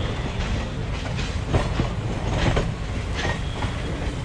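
Circar Express passenger coaches rolling slowly along the track: a steady low rumble of the train running, with irregular clacks as the wheels strike rail joints.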